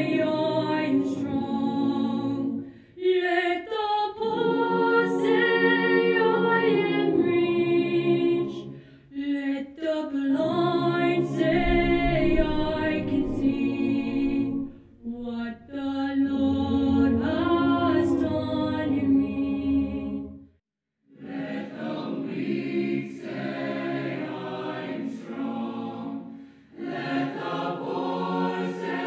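Mixed choir of women's and men's voices singing a cappella in long phrases, with short breaks between them and one brief full pause about twenty seconds in.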